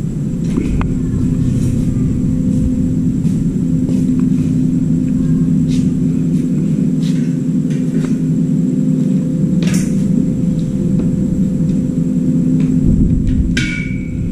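Steady, loud machine hum holding several low pitches, with a few sharp clicks and knocks over it, the sharpest about ten seconds in.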